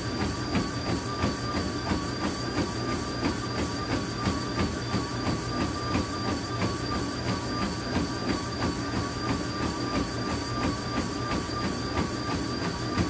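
Treadmill running at a fast pace: a steady motor whine under the regular thud of running footfalls on the belt, about three a second.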